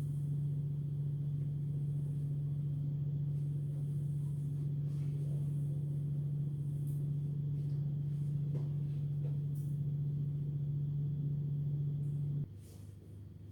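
A steady low hum, with a few faint light taps over it, that cuts off suddenly near the end.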